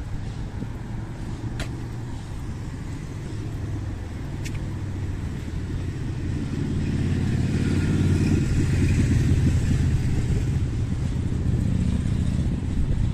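Car passing by: a low engine and tyre rumble that builds to its loudest about eight seconds in and stays up toward the end.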